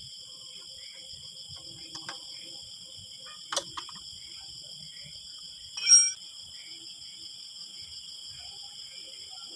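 A steady, pulsing chorus of crickets chirping throughout. Over it, a few light metal clicks and, about six seconds in, one sharp metallic clink with a brief ring, from a steel rod knocking against the motorcycle exhaust's end can while the silencer insert is fitted.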